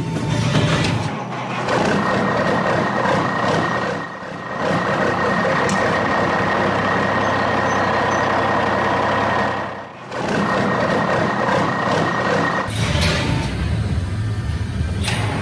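Heavy hooklift truck sound effects: the truck's engine running with a steady high whine through most of it, the level dipping briefly twice.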